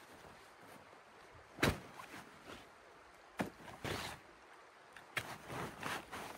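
A handful of sharp knocks and clatters, the loudest about one and a half seconds in, with softer rustling between them over a faint background hiss.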